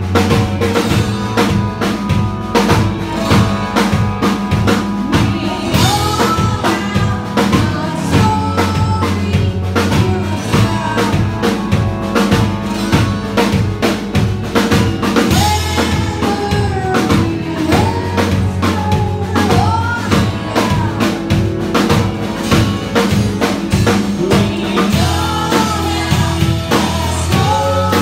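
Live rock band playing: a drum kit keeps a steady beat under bass and guitar, with a melody line weaving over the top.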